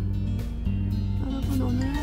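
Background music with a low bass line changing note every half second or so.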